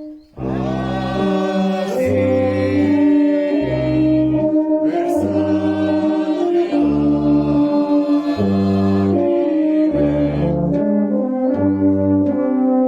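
Town brass band playing slow processional music: sustained brass chords over a regularly repeating low bass note. The music breaks off for a moment just after the start, then resumes.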